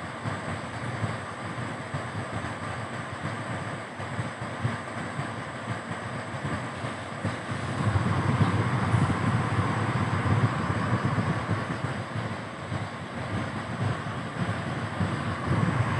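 Car driving along a road: a steady mix of engine, tyre and wind noise, getting louder about halfway through.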